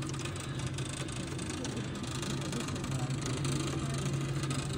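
Steady low mechanical hum of the cable lift's motor as it lowers the open gondola down the volcano's shaft.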